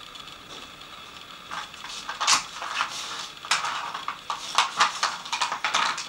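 A dog nosing at a plastic treat puzzle: hard plastic pieces clacking and rattling against the tray in a run of sharp clicks. The loudest comes about two seconds in, and they come more often in the second half.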